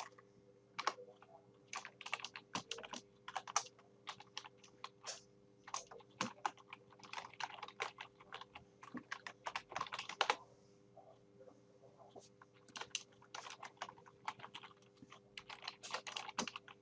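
Typing on a computer keyboard: quick runs of key clicks in irregular bursts, with a brief pause a little past the middle.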